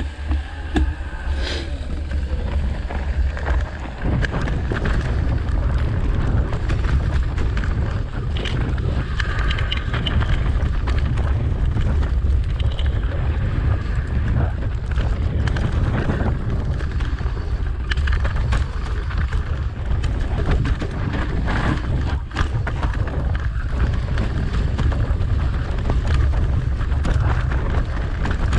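Wind buffeting the microphone of a camera on a mountain bike riding downhill, with tyres rolling over dry leaves and dirt and the bike clattering over bumps.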